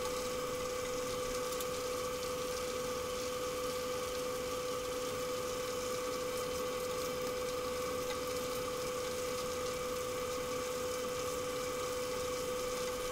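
Chicken wings deep-frying in hot oil, a steady sizzle, under a constant hum with one clear steady tone.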